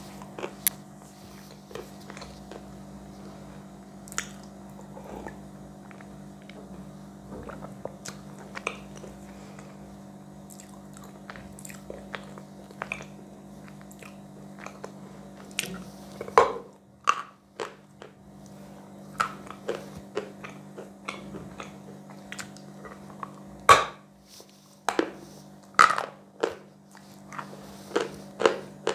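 A person chewing a mouthful of chalk close to a clip-on microphone, with soft crunches and wet mouth clicks. A few louder crunches come in the second half, over a faint steady low hum.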